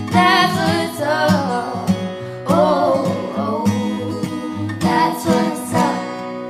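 Background music: a song with plucked strings and singing.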